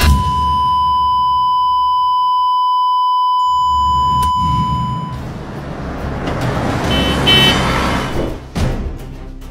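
A long, steady electronic beep at one pitch, held for about five seconds and then cut off sharply. It gives way to a swelling noisy rush as a music cue builds.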